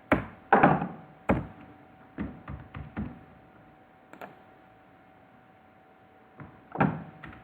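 Scattered computer keyboard keystrokes and clicks, several close together early on, then a few isolated ones, over a faint steady hum.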